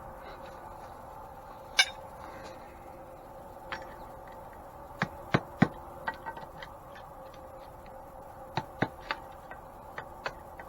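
Light, irregular metal-on-metal hammer taps, about a dozen, driving a fitted part out of an antique grain mill. The part is loose enough to need set screws.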